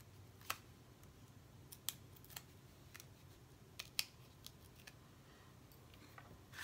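Small crisp clicks and crinkles of cardstock and a thin plastic adhesive backing being handled and peeled by hand, about eight of them spread irregularly, the loudest about four seconds in.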